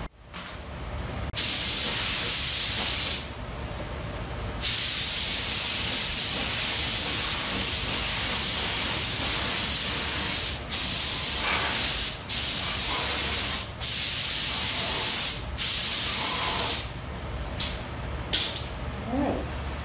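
Air-fed paint spray gun hissing as it sprays a coat of automotive paint. The hiss comes in long passes with short breaks where the trigger is let go, and ends with a few short bursts.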